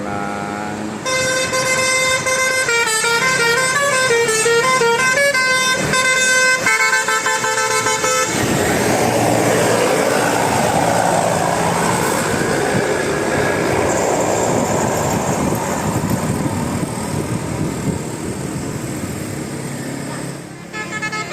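Indonesian 'telolet' bus horn, a set of trumpet horns sounding together, playing a warbling multi-note melody for about seven seconds. Then comes a long stretch of loud rushing noise, and the horn starts again near the end.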